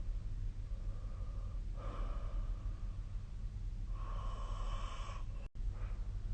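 A sleeping person's snoring breaths: two long, noisy breaths about two and four seconds in, over a steady low hum. The sound cuts out for an instant near the end.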